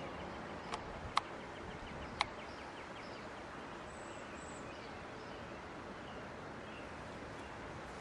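Steady outdoor background hiss, broken by three sharp clicks in the first two and a half seconds, with a faint high chirp about four seconds in.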